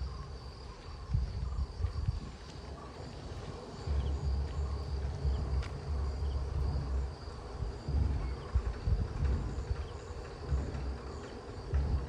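Insects trilling steadily at a high pitch in an evening chorus. A louder low rumbling on the microphone comes and goes over it.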